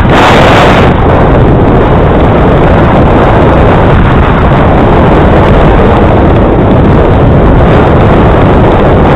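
Loud, steady wind noise buffeting the microphone of a bike-mounted camera as the bicycle moves at speed along a tarmac lane.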